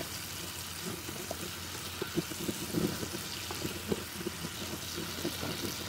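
Onions and mushrooms in oyster sauce sizzling in a frying pan, a steady hiss with many small pops.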